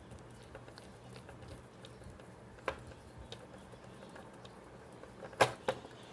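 Small screwdriver driving the last screw into a V2 airsoft gearbox shell: faint scattered ticks and scrapes, a sharper click about two and a half seconds in, and two louder knocks a little after five seconds.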